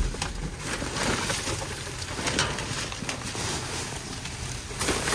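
Plastic trash bags and packaging rustling and crinkling as they are rummaged through by a gloved hand, with a few sharper crackles.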